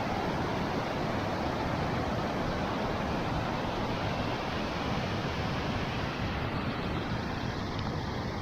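Waterfall: a steady rush of falling water, its upper hiss easing a little about six and a half seconds in.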